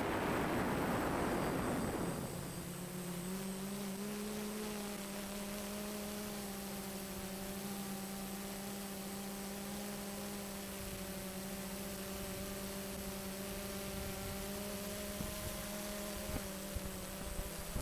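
Wind buffeting the microphone for about two seconds, then the steady hum of the DJI Phantom FC40 quadcopter's motors and propellers, one pitch with overtones that steps up slightly about three seconds in.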